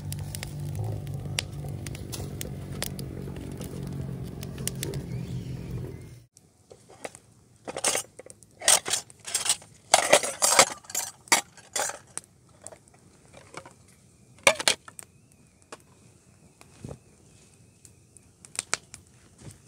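Background music for about six seconds, cut off abruptly, then scattered clinks and clatter of utensils against pots and dishes.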